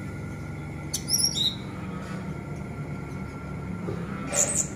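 Orange-headed thrush singing in short high-pitched phrases: a quick run of falling notes about a second in and a brief call near the end.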